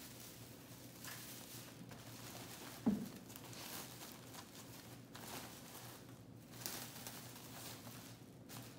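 Faint rustling of a wired fabric ribbon bow and artificial pine garland being handled and shaped by hand, with a single short bump about three seconds in.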